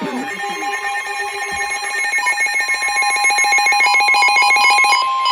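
Emergency Alert System alert tones between two alert messages: a loud, steady two-tone electronic alarm that starts abruptly, with a fast pulsing, stepping electronic tone pattern laid over it that stops about five seconds in.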